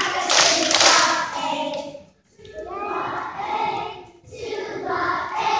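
A children's choir singing in short phrases, with two brief pauses between lines. About half a second in there is a loud, rough burst of noise over the singing.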